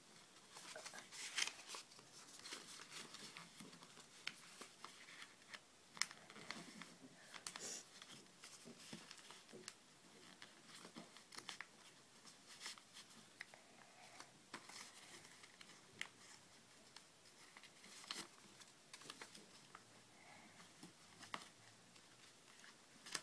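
Faint rustling and crinkling of a sheet of origami paper being folded and creased by hand, with a few sharper crackles.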